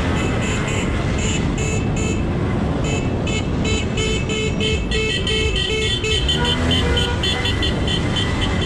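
Many car horns honking in quick runs of short toots, several a second, over a steady low rumble of traffic: celebratory honking in a street jam.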